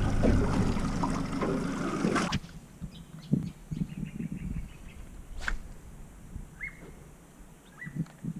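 Wind and water noise from a boat on open sea, cutting off abruptly about two seconds in. Then a much quieter outdoor ambience follows, with scattered low thumps and two short bird chirps.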